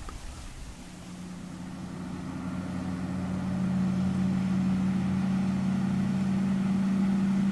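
Cabin cruiser motorboat passing at speed, its engine drone growing louder over the first few seconds and then holding steady. The boat is being run hard at high throttle, the kind of running that throws the big wake and waves onto the shore.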